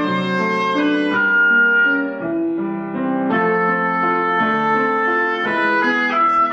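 Oboe and grand piano duet: the oboe plays a slow melody of long held notes over piano chords, and the music thins briefly about two seconds in.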